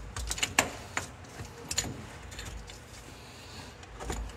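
Scattered light metallic clicks and taps of a hand tool and fittings being handled on an excavator's rotary manifold: several sharp ticks in the first two seconds, then one more near the end.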